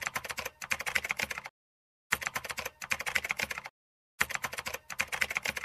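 Typing sound effect of rapid keyboard key clicks, laid over text typing out letter by letter. It comes in three bursts of about a second and a half each, with short silent gaps between.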